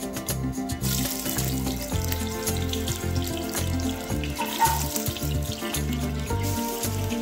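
Marinated fish steaks sizzling in hot oil, the hiss starting about a second in as the first piece goes into the pan and carrying on as more pieces are added, under background music.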